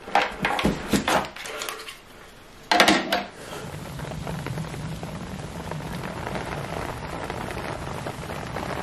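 Clicks and knocks of hands handling a plastic RC bait boat hull and its remote over a cardboard box, with a louder clatter about three seconds in. Then a steady hiss with a low hum under it.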